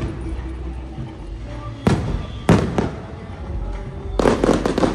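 Aerial fireworks bursting: a few single booms around two seconds in, then a rapid cluster of crackling bangs near the end.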